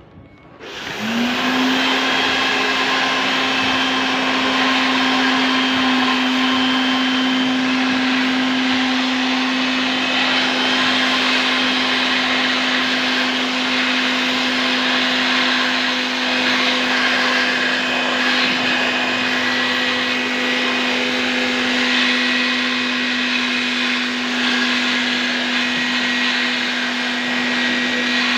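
An electric motor spins up about a second in and then runs steadily for the rest of the stretch: one steady hum over a loud, even rushing noise, like a blower or vacuum-type machine.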